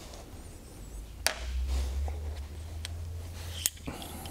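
Small metal parts of an FX Crown air rifle's action being handled during disassembly: a few sharp clicks and taps, with a low rumble of handling in the middle.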